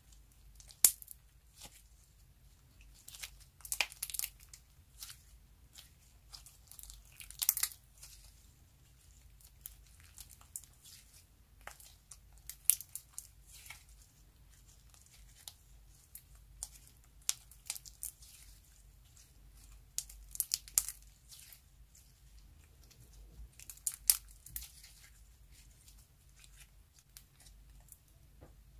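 Hands stretching, folding and squeezing clear slime packed with star-shaped sequins, giving irregular sticky crackles and sharp clicks, loudest in short clusters every few seconds.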